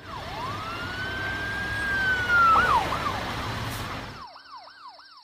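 Police siren: one long wail that rises, holds and falls, then switches to quick repeated up-and-down yelps. A noisy rumble under the wail cuts off about four seconds in.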